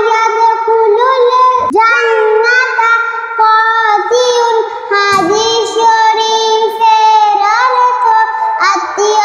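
A young girl's voice chanting a hadith in a sing-song melody, holding notes and gliding between them.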